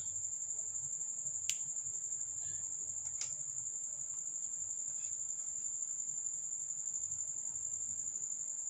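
A cricket trilling, a steady high-pitched pulsing chirr, with two sharp clicks of a pocket lighter being struck about one and a half and three seconds in.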